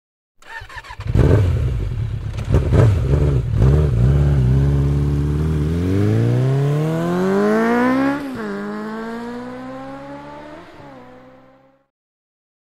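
Ducati Multistrada V4S motorcycle's V4 engine revved in a few short blips, then accelerating hard with its pitch rising, dropping at a gear change about eight seconds in and again about a second before it fades out.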